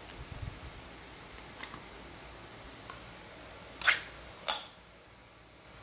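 Ring-pull lid of a metal dog food can being opened: a few light clicks as the tab is worked, then two sharp metallic snaps about half a second apart as the lid is peeled back.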